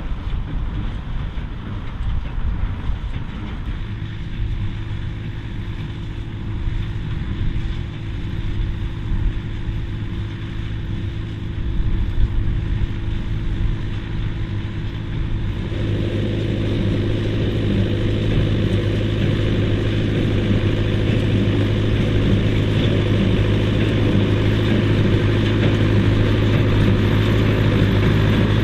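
David Brown 990 tractor's four-cylinder diesel engine running steadily while it pulls and powers a McCormick IH F5-91 baler, with the machinery getting louder about halfway through.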